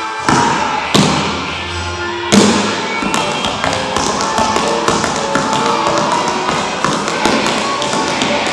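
Tap shoes striking a hard dance floor in quick rhythmic taps over a music track, with a few heavier hits in the first couple of seconds, then rapid runs of taps.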